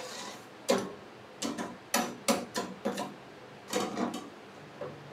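Steel ladle clinking and scraping against the inside of a stainless steel pot while stirring sugar into water to dissolve it: about a dozen irregular taps, bunched in the middle.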